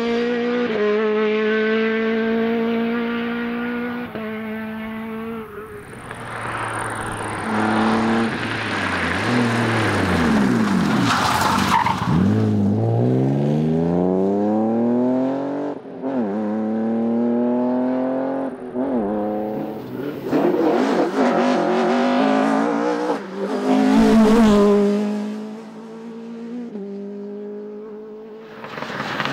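Rally cars at racing speed: engines revving hard, pitch climbing through the gears, then dropping on braking and downshifts before accelerating away again, with tyres skidding on the loose surface.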